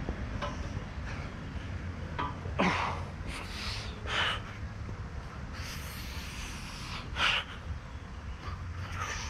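A man breathing hard from exertion in a pull-up workout, with about five sharp, forceful breaths over a few seconds. A steady low rumble runs underneath.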